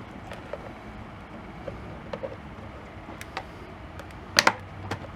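Light clicks and taps of plastic welding-helmet parts being handled, with two sharper clicks close together about four and a half seconds in, over a low steady hum.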